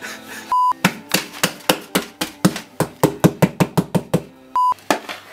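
A quick run of slaps as palms beat the bottom of an upturned plastic mixing bowl to knock out the thick cheesecake mass stuck inside. The slaps come about five a second and speed up. Two short high beeps sound, one near the start and one near the end.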